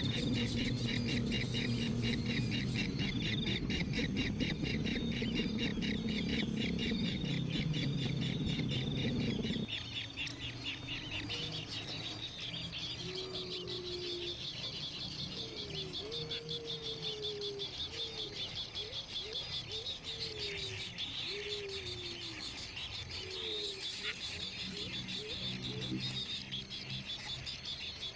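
Baby birds chirping in a fast, evenly repeated high call, typical of nestlings begging for food. A loud low noise underneath stops suddenly about ten seconds in, after which a string of short, low, sliding whistle-like notes can be heard.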